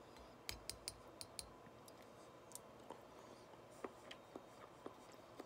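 Near silence broken by faint clicks of a mouth chewing a pickled mushroom: a quick run of five sharp clicks about half a second in, then softer wet clicks near the end.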